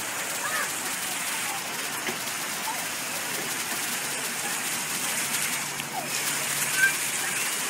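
Ground-level splash-pad fountain jets spraying and spattering onto wet pavement, a steady hiss like rain, with children's voices faint in the background. One brief louder sound a little before the end.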